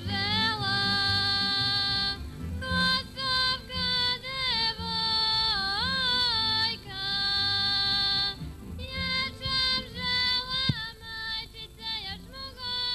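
A woman singing a Serbian folk song solo, holding long notes with ornamented bends in pitch, over a soft low accompaniment; her phrases grow shorter towards the end.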